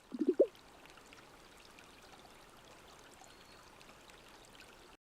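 Water running or pouring steadily, opening with three short, loud rising gurgles, then cutting off abruptly near the end.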